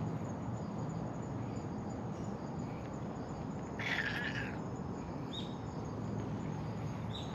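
Outdoor ambience of insects and birds: a steady hiss with a couple of short high chirps, and one brief louder call about four seconds in.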